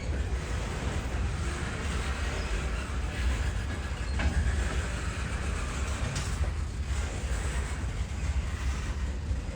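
Train rolling past on the track: a steady rumble of wheels and cars, with a single sharp clank about four seconds in.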